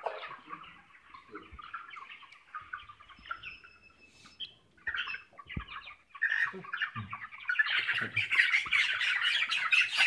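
A flock of 27-day-old broiler chickens peeping and chirping, with the squawking growing louder and denser over the last couple of seconds as birds are caught for weighing.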